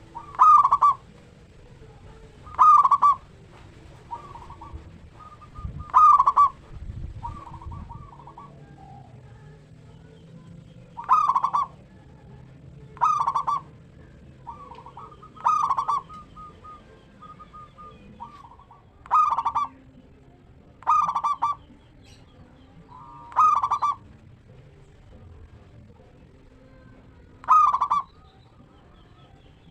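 Zebra dove (local perkutut) singing its cooing song: about ten short, loud phrases repeated every two seconds or so, with softer notes in between.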